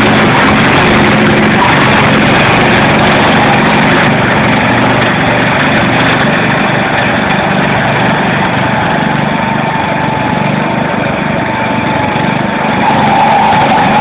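Two Wheel Horse garden tractor engines running hard under load as the tractors pull against each other. A thin steady whine comes in about halfway and grows stronger near the end.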